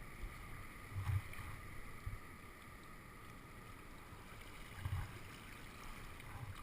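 Kayak paddling on a river: water splashing and flowing around paddles and hull, with low thumps about a second in and again near five seconds.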